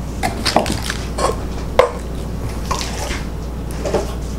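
Handling noises from plant packaging: a string of light clicks, taps and crinkles of a clear plastic cup and cardboard boxes being moved and set down, with the sharpest knock a little under two seconds in.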